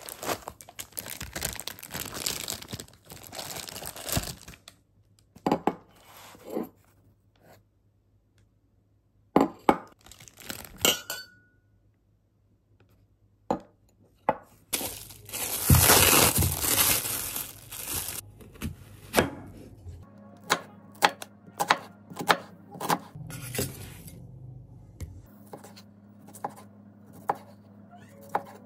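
Plastic wrap crinkling and tearing as glass cups are unpacked from foam, with a few sharp clinks of glass and a louder burst of rustling about halfway through. Then a kitchen knife chopping on a cutting board at a steady rhythm of about two strokes a second.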